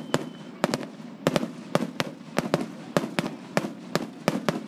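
Aerial fireworks going off in a rapid, irregular series of sharp bangs, about three or four a second, some coming in quick pairs.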